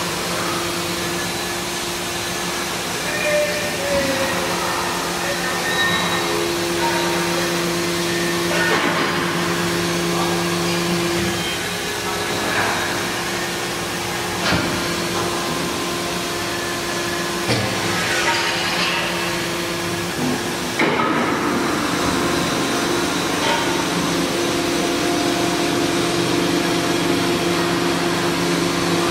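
250-ton double-action hydraulic press with its pump unit running, a steady hum with a couple of held tones while the ram travels. A few sharp clicks and knocks come at scattered moments, and the hum steps up slightly about two-thirds of the way in.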